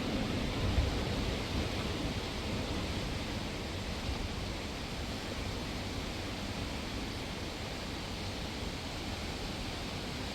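Steady rushing wind of a snowstorm, with a deeper low rumble in the first second or two that then settles to an even hiss.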